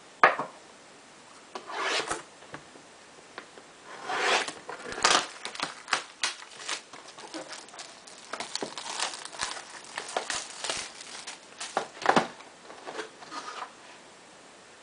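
Plastic shrink wrap being torn and crinkled off a factory-sealed cardboard box of trading cards, with cardboard rubbing and a few sharp clicks, in irregular bursts.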